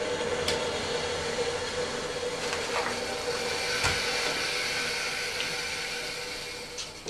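1994 Crane Economiser toilet flushing: a steady rush of water with a steady tone under it, tapering off near the end.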